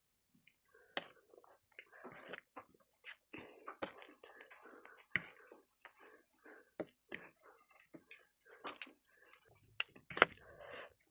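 Two metal forks tossing and mixing pork kima noodles on a plate. Soft wet rustling is broken by irregular light clinks of the forks against the plate, one louder clink about ten seconds in.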